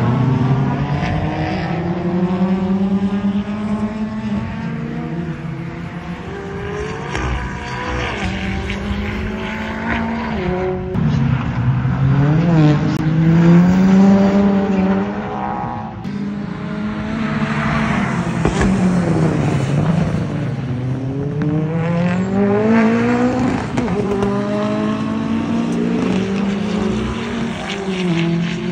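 Several track cars' engines accelerating and braking around a racing circuit, their notes climbing through the gears with a sudden drop at each shift, then dipping and rising again several times as different cars pass. The engines often overlap.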